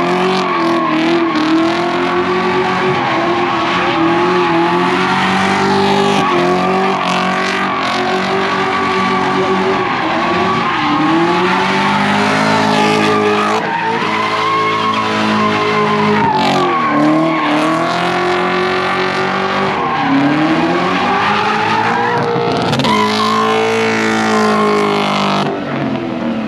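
Several cars doing donuts in tandem: engines held at high revs with tyres squealing on the pavement. The revs dip and climb again several times, around 11, 14, 17 and 24 seconds in.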